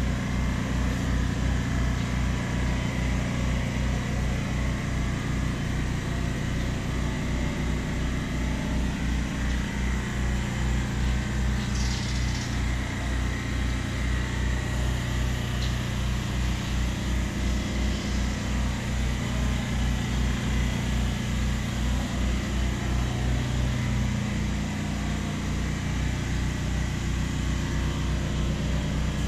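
Steady low mechanical hum with a fast, even throbbing pulse.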